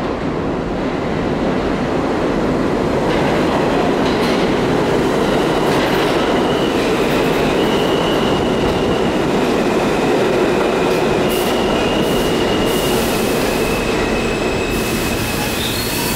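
An R160A/R160B New York City subway train runs into an underground station, a loud, steady rumble of the cars rolling past on the rails. Intermittent high-pitched squeals start about four seconds in as the train brakes and slows to a stop.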